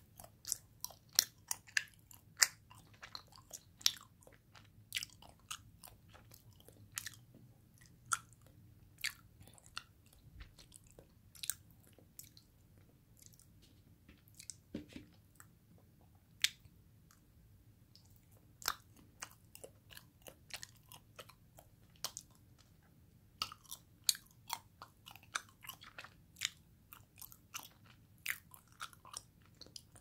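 Close-miked chewing of soft Royce nama chocolate, a cocoa-dusted ganache: irregular soft mouth clicks and smacks, thinning out for a few seconds midway before picking up again.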